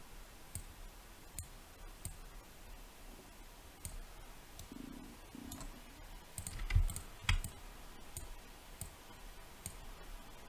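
Faint computer mouse clicks, single and spaced irregularly, with two louder knocks about seven seconds in.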